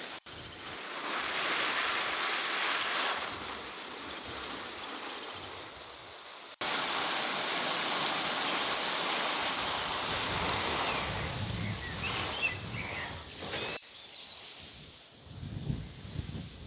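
Steady outdoor background hiss, in three stretches joined by abrupt cuts, with faint bird chirps.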